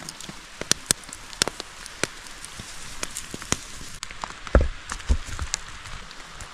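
Rain falling, with drops ticking irregularly over a steady hiss, and two dull thumps at about four and a half and five seconds in.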